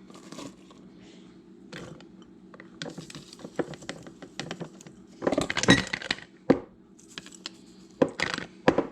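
Chopped onion and sugar being layered into a jar: a run of light clicks, taps and clinks against the jar, with a louder noisy spell about halfway through and a few sharper knocks near the end.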